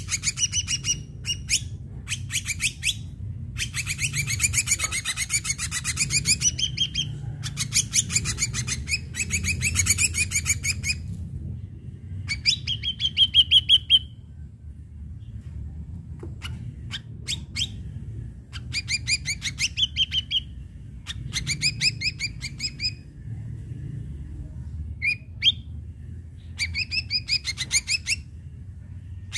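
Ashy drongo singing in bursts of rapid chattering trills and clear whistled notes, with short pauses between phrases.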